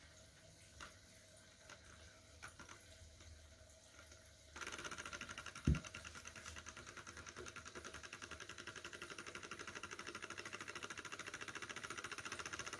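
Bohm HB14 twin Stirling model engine starting to run about four and a half seconds in, its many linkages and ball bearings giving a fast, even mechanical clatter that grows slightly louder; before that there are only a few faint clicks. A single low thump comes about a second after it starts.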